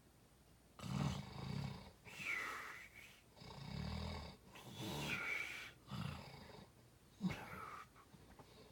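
A man snoring in his sleep: a run of rough, low snores, each about a second long with short breaks between them, starting about a second in.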